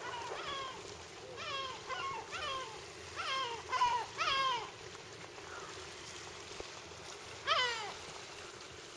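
A series of short, pitched animal calls, each rising briefly and then sliding down in pitch, coming in quick pairs and threes through the first half and once more near the end, over a steady rushing background.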